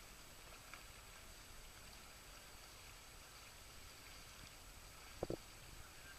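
Near silence: faint, even background hiss, with one short double knock about five seconds in.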